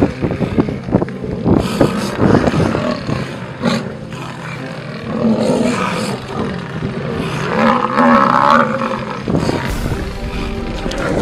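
Lions growling and roaring during a clash with Cape buffalo, with background music underneath.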